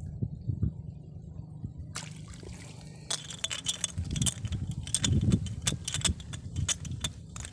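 A low rumble with soft bumps, then from about two seconds in a dense run of irregular sharp clicks and rattles.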